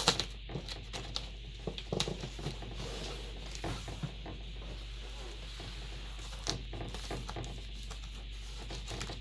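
Hands handling a large cardboard box on a wooden table: scattered light knocks, pats and scrapes of cardboard as it is shifted and turned, the sharpest knock right at the start. A steady low hum runs underneath.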